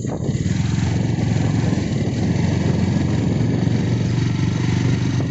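Motorcycle engine running steadily while under way, with wind and road noise over it.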